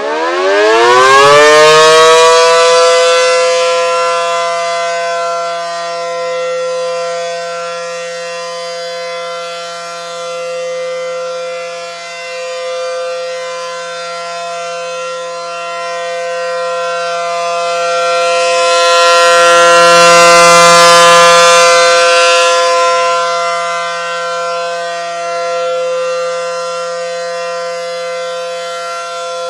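ACA Allertor electromechanical tornado siren winding up, its pitch rising and levelling off about two seconds in, then holding a steady wail. Its loudness swells and fades, peaking near the start and again about twenty seconds in.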